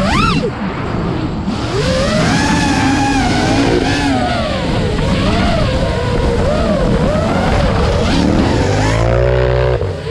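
Motors revving hard, their whine swinging quickly up and down in pitch, with a deeper engine rumble rising about eight seconds in.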